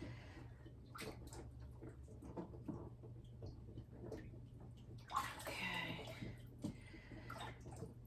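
Dirty standing water sloshing in the bottom of a dishwasher that is not draining, with small plastic clicks and knocks as the clogged parts in the tub are handled; the longest splash comes about five seconds in.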